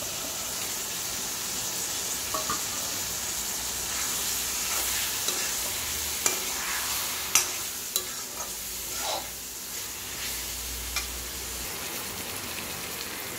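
Vegetables frying in oil in a metal kadai, sizzling steadily, as a perforated metal spatula stirs masala powders into them, with scattered clicks and scrapes of the spatula against the pan.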